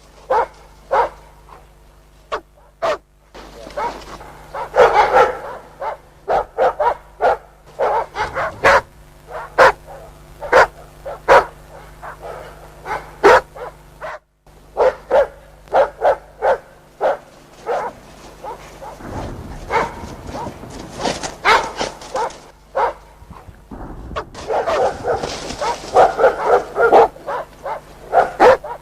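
Hunting dogs barking, a long series of sharp barks about one or two a second, thicker in a few stretches, with a brief pause about halfway.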